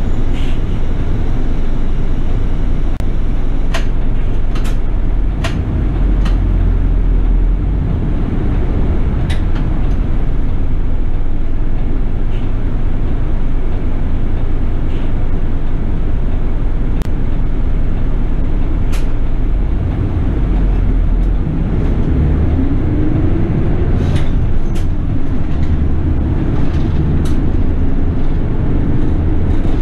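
City bus interior on the move: the engine running under a steady low rumble of road noise, with short rattles and clicks from the cabin. The engine's pitch rises around two-thirds of the way through as the bus pulls away or accelerates.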